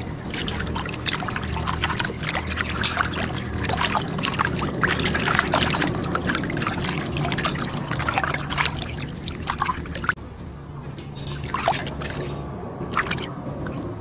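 Raw cow intestine being kneaded and rinsed by hand in a steel basin of water: busy, irregular splashing and sloshing. It eases off about ten seconds in, leaving a couple of single splashes near the end.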